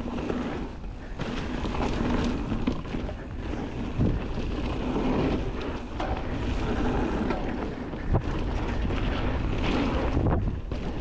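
Wind buffeting a GoPro action camera's microphone during a fast mountain-bike descent, over a steady rumble of tyres rolling on a dirt trail. Sharp knocks from the bike hitting bumps come about four and eight seconds in.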